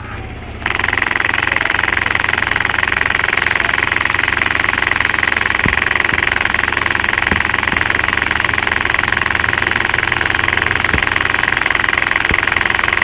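ATV engine running steadily at a constant speed, heard close up; it cuts in suddenly about a second in and does not rev.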